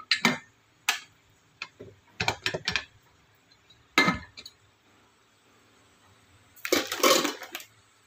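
Aluminium pressure cooker being opened: sharp metallic clicks and clinks as the whistle weight is lifted off and the lid is twisted and worked loose, then a louder metal scraping clatter of about a second near the end as the lid comes free.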